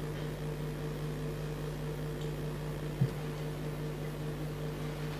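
Steady electrical hum over a light hiss, with one soft low bump about three seconds in.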